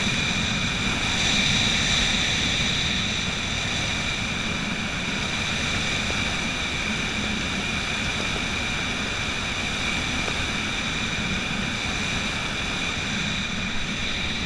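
Steady wind rushing over a handheld camera's microphone during a tandem parachute descent under an open canopy, with a few faint steady high whines in it.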